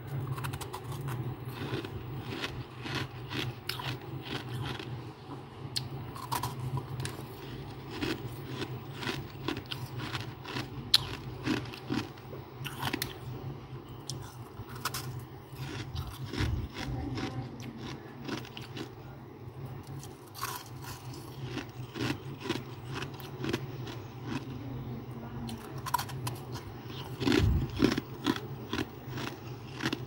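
Freezer frost being bitten and chewed close to the microphone: irregular crisp crunches throughout, with a louder cluster near the end. A steady low hum runs underneath.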